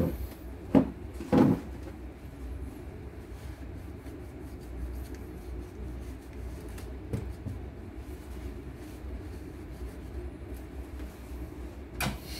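Knocks of hands handling tools and parts on a wooden workbench: a few sharp knocks in the first second and a half, quiet handling noise after that, and one more knock near the end as a screwdriver is picked up.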